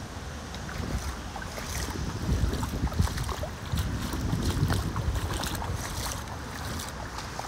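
Rubber rain boots splashing step after step through shallow floodwater on a sidewalk, with wind buffeting the microphone.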